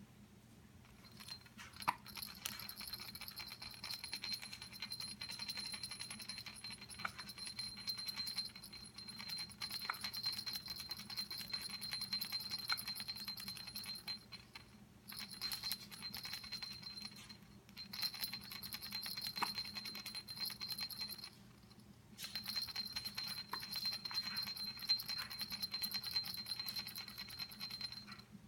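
A high, steady jingling in three long stretches, broken by short pauses about 14 and 22 seconds in.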